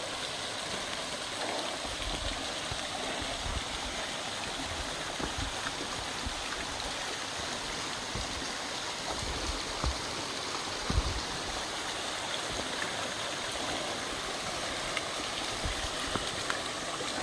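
Waterfall cascading over rock: a steady, even rush of falling water, with a brief low thump on the microphone about eleven seconds in.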